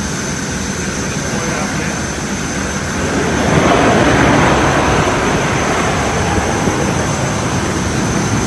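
Steady airport ramp noise of aircraft machinery: a rumbling hiss with a constant high whine, swelling louder about three seconds in.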